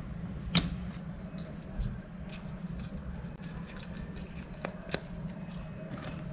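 Hand-working sounds of leather crafting: a few sharp clicks and light knocks as leather pieces and tools are handled and set down on the cutting mat, the loudest about half a second in, over a steady low hum.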